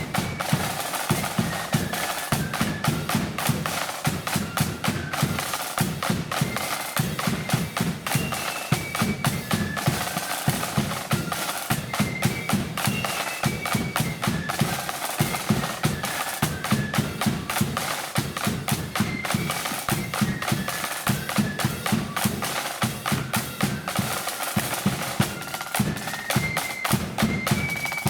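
Blood-and-thunder marching flute band playing a tune. The flutes carry a stepped melody over rapid snare drumming and a heavy bass drum beat.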